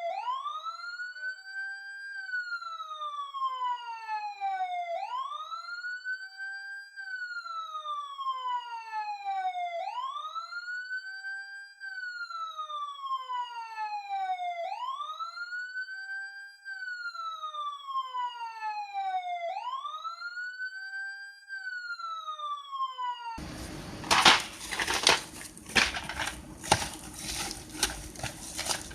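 Electronic wailing siren tone: it climbs quickly, holds, then slides slowly back down, repeating about every five seconds. About 23 seconds in it cuts off abruptly and gives way to crackling, rustling noise with sharp clicks.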